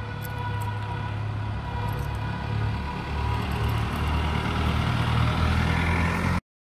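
A car drives past on the street, its engine rumble building toward the end. During the first few seconds a long, steady tone sounds in the background and fades away. The sound cuts off suddenly near the end.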